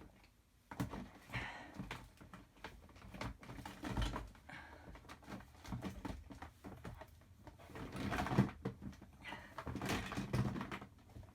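Rummaging through craft supplies: irregular rustling of paper and plastic packets with small clicks and knocks, loudest about eight seconds in.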